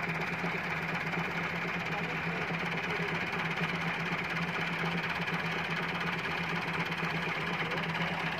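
Tractor diesel engines running at a steady speed, an even, continuous hum with diesel clatter and no revving.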